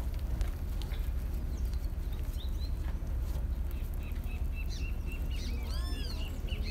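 Small birds calling: a quick run of short chirps about four seconds in, then a few arched, rising-and-falling calls near the end, over a steady low rumble.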